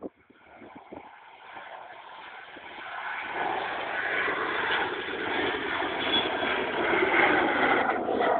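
Twin-engine jet airliner climbing out after takeoff and passing overhead. Its engine noise starts faint and grows steadily louder from about three seconds in, then stays loud.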